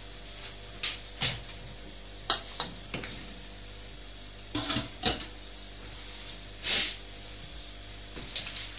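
Scattered light knocks and clicks of household objects being handled, with a short hiss about seven seconds in, over a faint steady hum.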